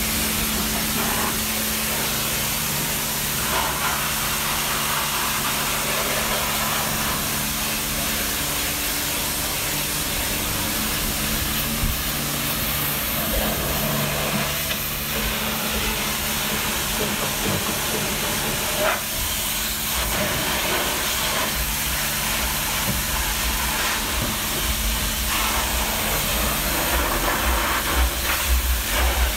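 High-pressure washer jet spraying water onto a car's body panels and wheels, a steady loud hiss, with a low steady hum underneath. Near the end the spray gets rougher and heavier as the jet works close along the rear wheel and the floor.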